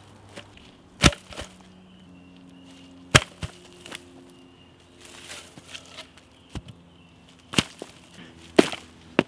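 Sharp cracks of wooden sticks being struck, five at irregular intervals, the loudest about a second in, about three seconds in and near the end.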